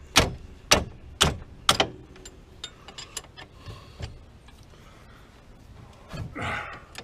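Hand tools working on a side-by-side's brake caliper bolt to break it loose: four sharp metallic knocks about half a second apart, then lighter ticks and rattles of metal on metal.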